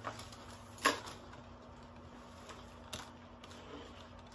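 Faint handling of packaging: a sharp click about a second in and a smaller one near three seconds, as a sheet-mask packet is handled. Otherwise low room tone.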